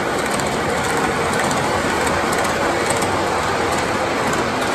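MTH O-scale model R62A subway train running steadily along its track, with a constant mechanical noise of motor, gears and wheels on the rails.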